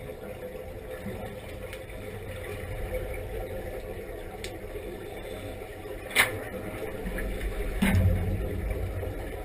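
Underwater sound in a diving tank: a steady low rumble with the bubbling of divers' exhaust air. A sharp click comes about six seconds in and a louder low thump near the end.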